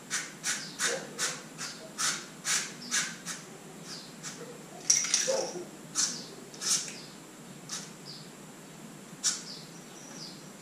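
Short hissing squirts from an aerosol can of nano-insulation contact spray, sprayed into an ATV's electrical plug connectors and fuse box to keep out moisture. Quick squirts two to three a second for the first few seconds, then fewer and further apart, with the loudest about five seconds in.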